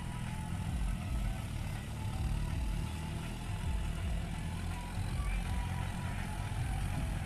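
John Deere 5050D tractor's three-cylinder diesel engine running steadily under load as it drags a disc harrow through loose sand.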